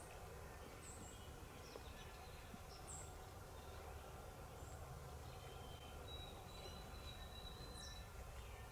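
Faint woodland ambience with scattered short, high bird chirps, and a thin steady high whistle for about two seconds past the middle.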